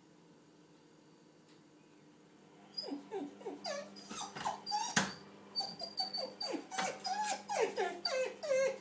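Small dog whining and whimpering at a shut door to be let through: a rapid string of short high cries, each falling in pitch, starting about three seconds in. One sharp knock sounds about halfway through, as it jumps at the door.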